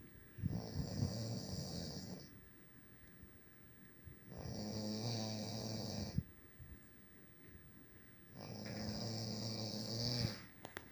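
A man snoring in his sleep: three long, low snores about four seconds apart, each lasting about two seconds.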